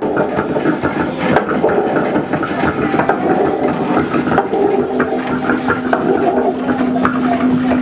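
Improvised noise music: a dense, steady wash of electronic noise through a mixer, with scattered hand-drum taps. A steady hum comes in about five seconds in.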